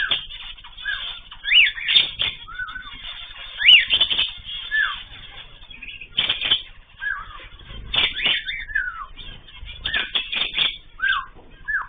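Small cage birds in an aviary calling: many short chirps that rise and fall in pitch, a few each second, with wing flutters and scratchy clicks among them.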